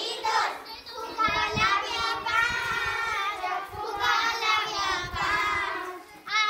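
Young girls singing a Gujarati children's action song together.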